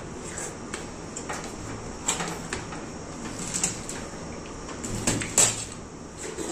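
Watermelon being eaten fast: wet, crunchy bites and slurps of the red flesh, with rind pieces handled on the table, as a string of irregular short smacks and clicks, the loudest just after five seconds in.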